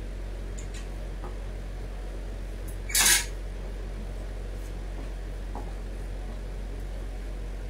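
Steady low room hum, with one short, loud swish of a garment and its sheer dupatta being handled about three seconds in.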